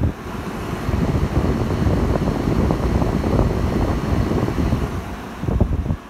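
Air blowing out of an RCA window air conditioner's vent straight onto the microphone, giving an uneven, gusting wind rumble over the running unit.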